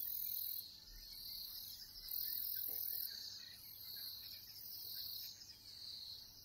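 Insects chirring in high-pitched, trilling bouts that start and stop every second or two.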